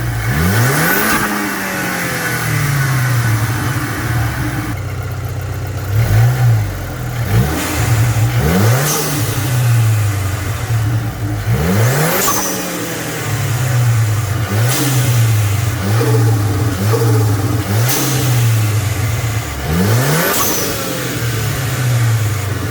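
Audi 2.0 TFSI four-cylinder engine with a K04 turbo blipped about seven times, each rev rising and falling back to idle. A Forge blow-off valve vents with a short sharp whoosh as the throttle is lifted.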